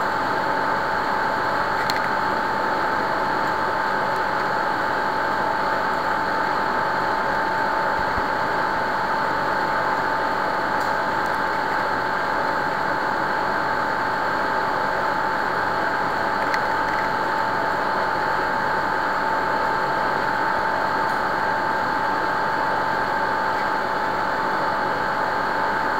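Steady whirring hum with a constant high tone, unchanging throughout: machine-like background noise of the recording setup.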